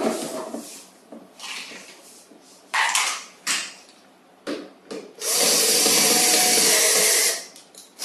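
Plastic parts of a toy ride-on tricycle knocking and clattering as they are handled. About five seconds in, a cordless drill-driver runs steadily for about two seconds, driving a screw into the plastic body.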